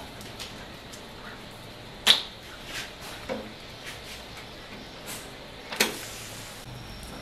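Crab pieces dropped by hand into a wok of simmering sauce, heard as a few short sharp knocks and splashes. The loudest comes about two seconds in and another just before six seconds.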